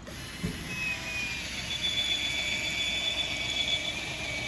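Cordless power driver running steadily with a high whine as it drives a 10-inch SPAX screw into a rock-hard tent pad as a tent stake. A short thump about half a second in.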